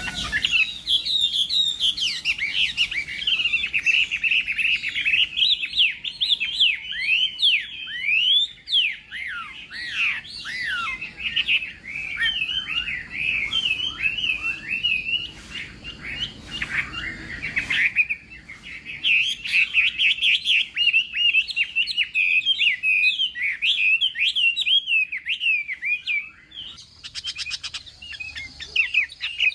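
Chinese hwamei singing a long, varied song of rapid whistled phrases that slur up and down, with a short pause about two-thirds of the way through and another near the end.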